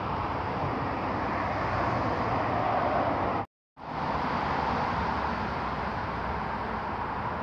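Steady hum of road traffic, an even rushing noise with no distinct vehicles standing out. It cuts out completely for a moment about halfway through, then resumes.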